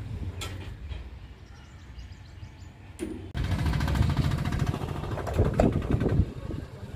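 Diesel engine of heavy construction machinery idling with a steady low rumble. It is quieter at first, with a few light clicks, then suddenly louder and closer about three seconds in.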